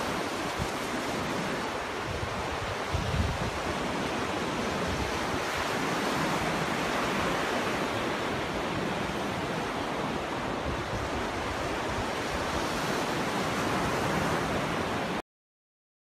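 Surf washing steadily onto a sandy beach, small waves breaking and running up the shore, with a brief low bump about three seconds in. The sound cuts off suddenly near the end.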